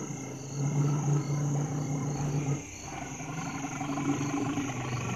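An African elephant's long, low rumbling call lasting about two and a half seconds, with a weaker call later, over the steady, regular chirping of insects.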